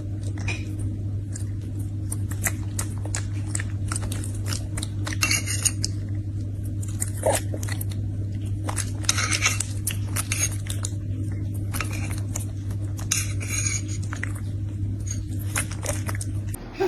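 Spoon clinking and tapping against a dish in irregular light clicks while an animal is fed from it, over a steady low hum.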